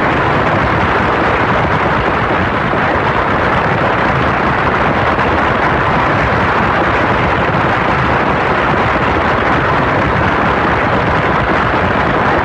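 Large crowd applauding: a loud, steady, dense clatter of many hands clapping.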